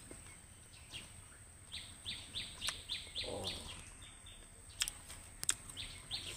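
A bird calling a quick run of about seven short, high chirps, with a few fainter chirps near the end. Two sharp clicks come in the second half.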